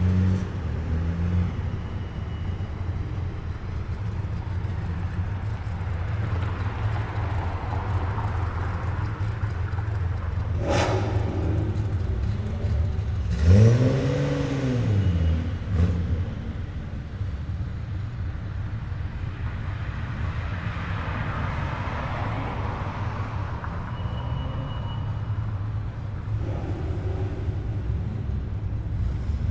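Cars rolling slowly past with engines running at low speed, a steady low hum. About halfway through one engine is blipped once, its pitch rising and falling over a couple of seconds, and tyre noise swells and fades twice as cars pass.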